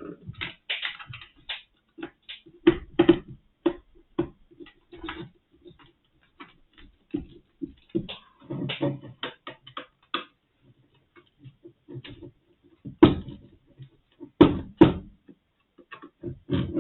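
Irregular clicks and knocks of small plastic and metal parts and tools being handled while a handheld sound level meter's casing is put back together, with a few louder knocks near the end.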